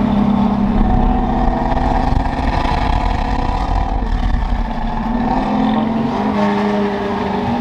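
Engine of a NASCAR-engined Ford F100 driving along, heard through its new dual 2.5-inch exhaust with an X-pipe and Black Widow Widow Maker 10 mufflers, a loud steady exhaust note with a deep low rumble.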